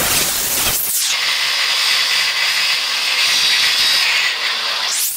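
Electric welding arc sizzling in a steady hiss as a wheel bracket is welded onto a steel cart frame.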